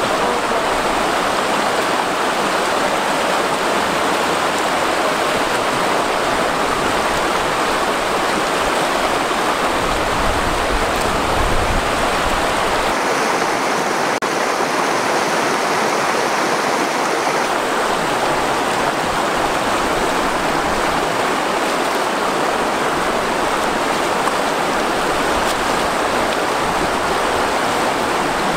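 Shallow, rocky river running fast over rapids: a steady rush of water.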